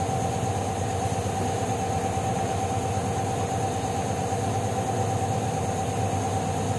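Honda PCX 160 scooter's single-cylinder engine idling steadily, with no revving.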